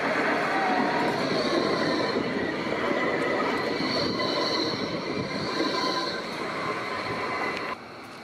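Bombardier Flexity Berlin tram passing close by on grass-covered track: wheels running on the rails with steady high squealing tones that swell and fade. The sound drops away suddenly near the end, leaving quieter street noise.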